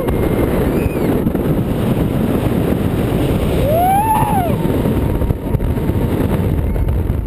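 Loud, steady rush of wind over the microphone and rumble of a hypercoaster train cresting its lift hill and diving down the first drop at speed. About four seconds in, a rider gives one brief shout that rises and falls in pitch.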